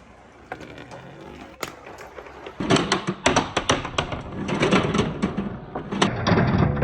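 Marbles rolling and clacking down a marble run's wooden ramps: a few scattered clicks, then from about two and a half seconds in a dense, rapid clatter of clicks.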